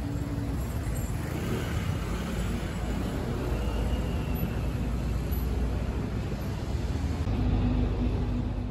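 Street traffic on a busy city road: car engines and tyre noise blending into a steady low hum.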